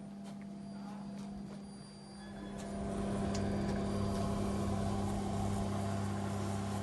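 Egg incubator's square circulation fan running with a steady electric hum, with a few light clicks in the first two seconds; the hum grows louder and deeper about three seconds in and then stays steady.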